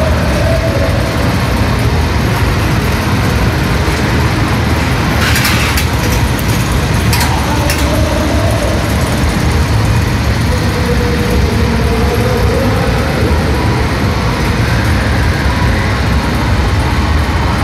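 Small steel-track roller coaster running, a loud steady rumble with a burst of sharp rattling about five to eight seconds in as a car passes close overhead.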